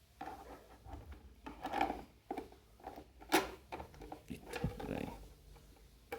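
Hands handling a plastic robot vacuum cleaner: rubbing and scraping, with several sharp plastic clicks and knocks, the loudest a little past the middle.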